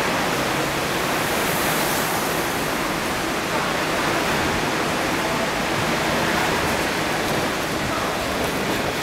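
Type 25Z passenger coaches of a through train passing close by at speed without stopping, making a steady rushing noise.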